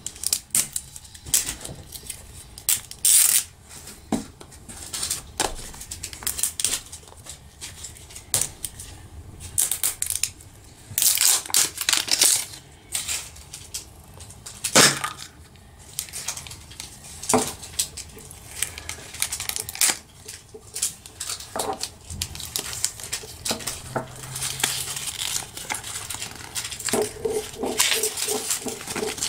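Close-up handling of a plastic toy vending-machine capsule, a stream of sharp clicks and scratchy rustles: the paper label band is torn and peeled off, the plastic halves click and scrape as they are worked open, and near the end a folded paper leaflet crinkles as it is unfolded.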